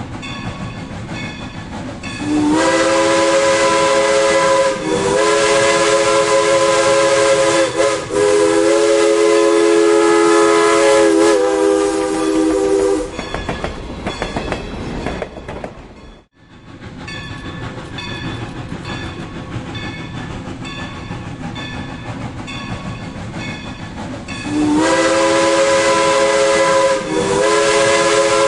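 Steam locomotive's chime whistle sounding a chord of several notes in a series of long blasts, starting about two seconds in. It breaks off briefly, then comes back near the end. Under it a level-crossing bell rings steadily.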